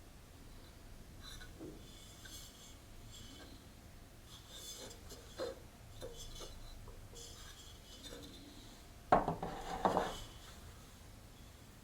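Objects being handled on a tabletop: soft rubbing and light scraping with small clicks, then a louder rough scrape about nine seconds in and another about a second later.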